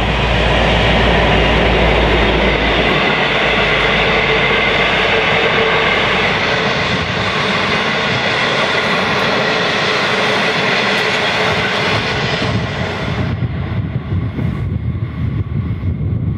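EMD-engined V/Line diesel locomotive passing close at speed, its low engine drone giving way after about three seconds to the rumble and clatter of the passenger carriages' wheels on the rails. The train noise fades as it recedes and drops away sharply near the end, leaving gusty wind on the microphone.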